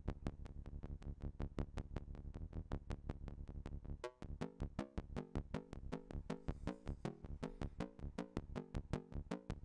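Buchla modular synthesizer playing a fast, even stream of short pulsed notes, several a second, triggered by a pulse train. About four seconds in the notes jump higher and their pitch starts shifting from note to note, with the pitch set by a 281e function generator's envelope.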